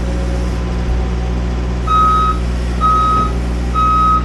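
Backup alarm of a reversing machine beeping about once a second, starting about two seconds in, over an engine running steadily.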